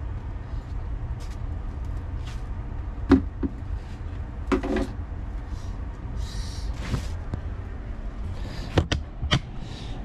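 A handful of sharp knocks and clicks over a steady low rumble. The loudest knock comes about three seconds in, and a close pair of clicks comes near the end.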